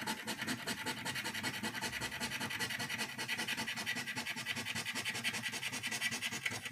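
A coin scratching the coating off a scratch-off lottery ticket in quick, even back-and-forth strokes as the letters are uncovered.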